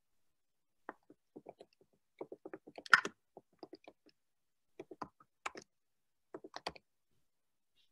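Computer keyboard typing: several short bursts of rapid key clicks, the loudest around three seconds in.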